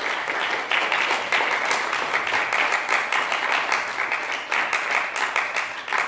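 Audience applauding, a dense patter of many hands clapping that dies away at the very end.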